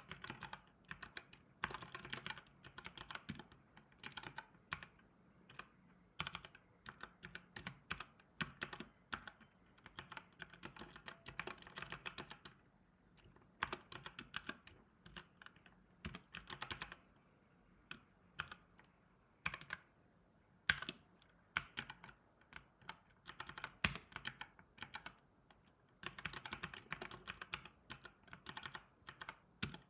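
Typing on a computer keyboard: quick runs of key clicks in bursts, broken by short pauses, with a few single harder keystrokes standing out.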